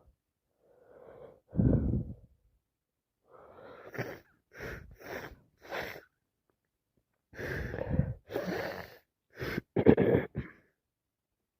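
A woman with a cold sneezing and sniffing. A loud sneeze comes about a second and a half in, short sniffs and breaths follow in the middle, and the loudest sneezes come near the end.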